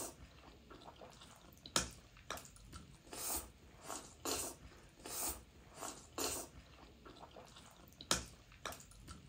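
Instant noodles being slurped up from forks, a short sucking slurp about once a second, some louder than others.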